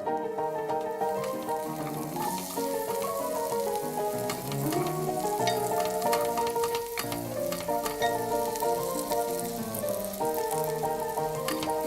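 Food sizzling as it fries in a pan, a steady hiss with scattered sharp clicks, under a light background music track.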